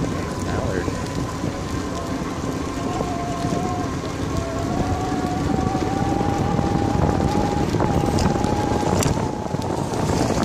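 Bicycle rolling along a paved path, with a steady rush of wind on the microphone and tyre noise. A thin whine slowly rises in pitch, and a few light clicks come near the end.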